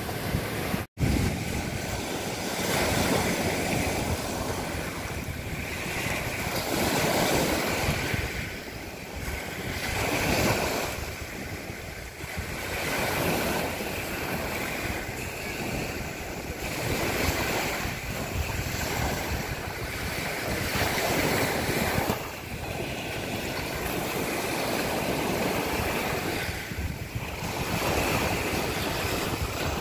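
Sea waves washing onto a beach, swelling and fading every few seconds, with wind buffeting the microphone.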